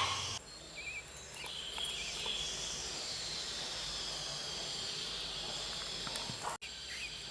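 Steady, insect-like high hiss, with a couple of faint short chirps in the first second or so; it breaks off abruptly near the end.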